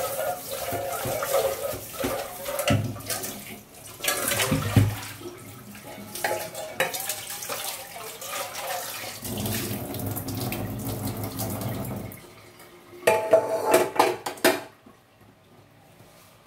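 Water running from a kitchen tap into a sink. A quick clatter of dishes comes near the end, then the running water stops.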